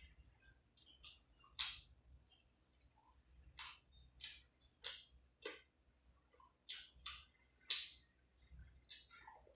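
Close-miked mouth sounds of eating chicken and rice by hand: sharp, wet smacks and chewing clicks, about a dozen at irregular intervals.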